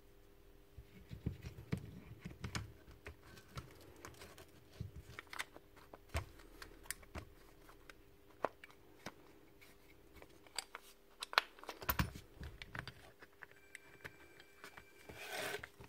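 Clicks and light knocks of plastic and metal parts being handled as a cordless drill's brushless motor and gearbox are seated back into its plastic housing, with a few duller thumps and a short hiss near the end.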